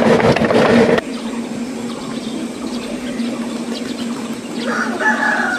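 Close, loud steam locomotive noise that cuts off about a second in, leaving a quieter background with a steady low hum. Near the end a rooster crows once.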